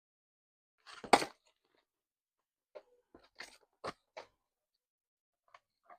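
Packaging being handled during an unboxing: a loud crinkling rustle about a second in, then a string of brief crackles and clicks of plastic wrapping.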